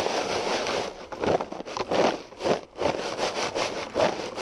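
Salted french fries being shaken in a cardboard box: a steady rustle for about the first second, then a run of separate scraping shakes, about two to three a second, as the fries slide against the cardboard.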